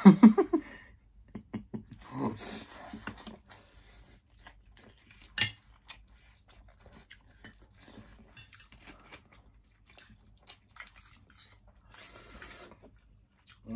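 Forks clicking and scraping against plates while instant noodles are eaten, with two bouts of noisy slurping, about two seconds in and near the end, and chewing. A short laugh opens it, and one sharp clink about five seconds in is the loudest click.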